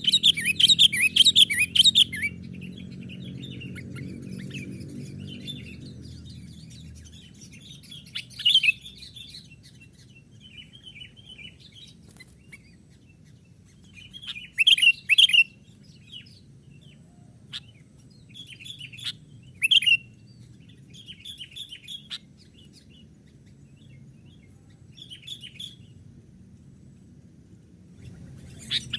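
Sooty-headed bulbuls (kutilang) calling in short bursts of bright chirps: a loud flurry at the start, more loud phrases about a third of the way and two-thirds of the way through, and softer chirping in between.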